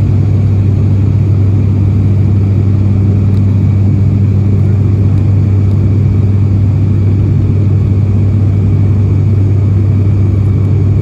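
Steady, deep drone of an ATR 72-600's Pratt & Whitney PW127M turboprop and six-blade propeller, heard from inside the cabin in flight. The level and pitch hold constant.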